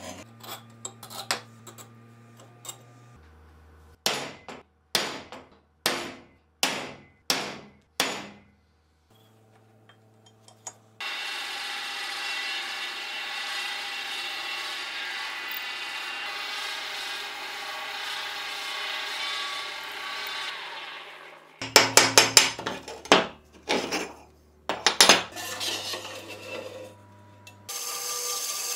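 Workshop machining sounds: about six sharp metallic knocks, then a drill press running steadily for about ten seconds as it drills a steel plate in a vise. A few more loud knocks follow, and near the end a horizontal metal-cutting band saw starts up on steel tube.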